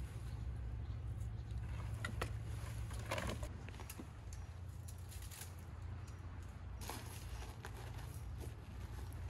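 Steady low rumble of wind on the microphone, with scattered light rustles and clicks from beach debris being handled, most clearly about two seconds in, around three seconds and near seven seconds.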